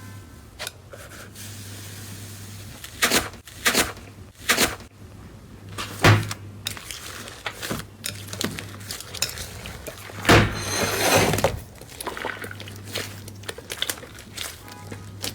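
Slime being squeezed and pressed by hand, giving sharp pops and crackles several times, the loudest about six seconds in and a longer crackling run around ten to eleven seconds in.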